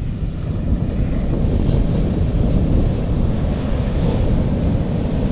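Sea waves washing softly on a beach, with wind buffeting the microphone as a steady low rumble. The hiss of the wash swells briefly twice.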